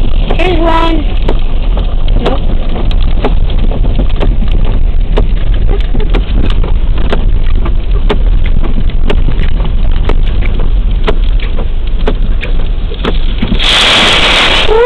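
Storm wind buffeting the microphone over pounding surf: a loud, steady rush with a deep rumble and many sharp ticks. A louder hissing rush comes near the end.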